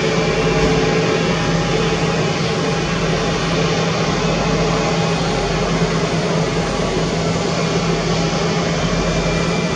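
Jet engines of a taxiing Airbus A320-family airliner running at low power, a steady noisy rush with a low hum through it.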